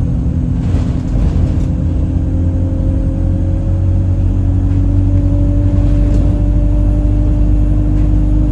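Alexander Dennis Enviro 200 bus under way: a low drivetrain rumble with a steady, horn-like droning tone that creeps slowly up in pitch. The uploader takes this strange noise, which began as a whistle, for a gearbox fault.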